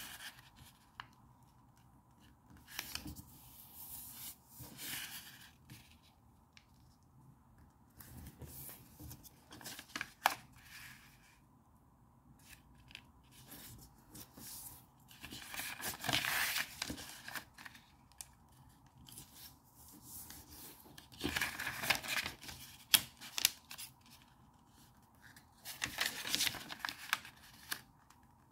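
Sheets of origami paper being handled and folded by hand: irregular bursts of rustling and crisp creasing with sharp little taps, separated by quiet gaps, the longest rustles in the second half.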